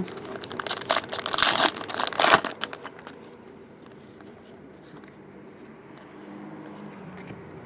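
A foil trading-card pack wrapper crinkling and tearing as it is ripped open, in a run of bursts over the first three seconds, followed by quieter rustling as the cards are handled.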